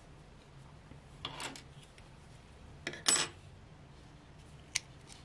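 A few short, light metallic clicks and clinks from a crochet hook being set down and small scissors being picked up to cut the yarn. The loudest comes about three seconds in.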